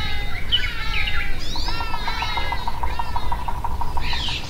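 Several birds calling and chirping over one another in short, pitched calls, with a rapid, even trill from about a second and a half to three and a half seconds in and a low rumble underneath.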